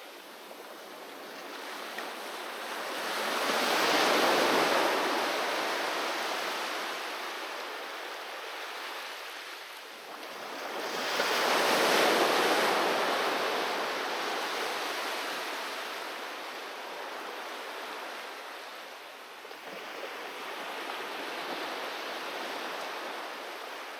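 Ocean surf: waves breaking on the shore and washing back, each rising to a rushing peak and fading. Two big waves break about eight seconds apart, and a smaller one comes near the end.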